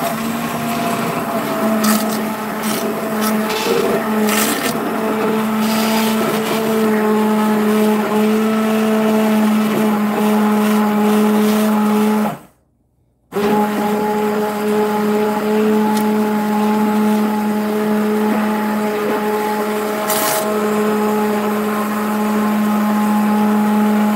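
Handheld immersion blender running steadily with a motor hum, puréeing butternut squash chunks in a stainless steel pot. It cuts out for about a second around halfway through, then starts again, with a few sharp clicks in its first few seconds.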